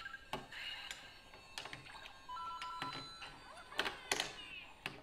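LEGO pieces clicking and clattering as they are picked through and fitted together by hand, in scattered sharp clicks. About halfway through comes a short electronic beeping of two steady tones lasting about a second.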